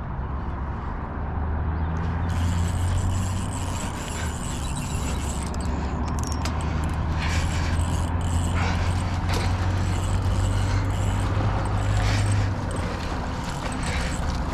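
A steady low engine hum that fades down about twelve seconds in, with scattered clicks and knocks in the second half.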